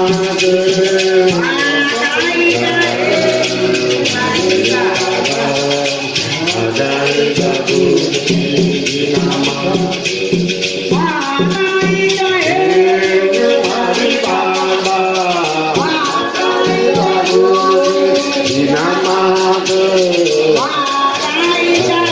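A group of voices singing a hymn, with hand rattles shaking a steady, even rhythm.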